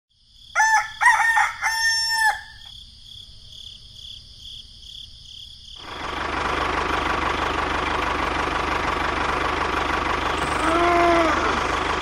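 A rooster crows, its call starting about half a second in and lasting about two seconds, over a steady high pulsing chirp. About six seconds in, a steady engine-like running noise starts and carries on, with a short rising-and-falling tone near the end.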